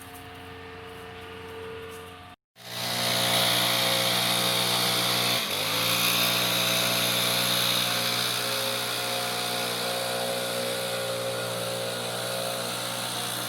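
Small petrol engine running steadily. Its pitch sags briefly under load about five seconds in, then recovers. It starts abruptly after a short cut about two and a half seconds in.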